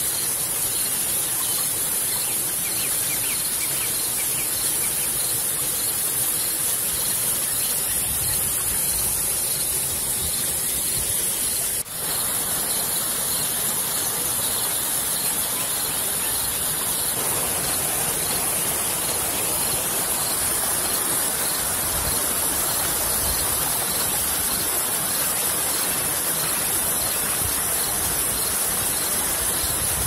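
Waterfall plunging into a pool: a loud, steady rush of falling water that dips briefly about twelve seconds in.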